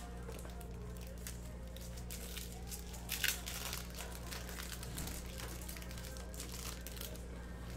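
Crinkling and rustling as a silver foil card-pack wrapper and a cardboard card box are handled, loudest about three seconds in.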